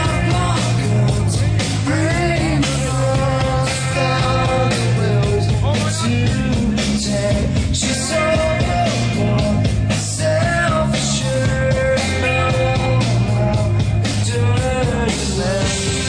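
Loud rock music with a singing voice over bass and drums.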